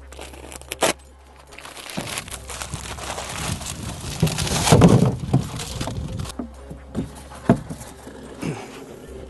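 Dry ice being handled into a plastic cooler: a plastic bag rustling and ice scraping and clattering in, building to a loud noisy rush about five seconds in, then a few sharp knocks as the blocks are set down against the cooler.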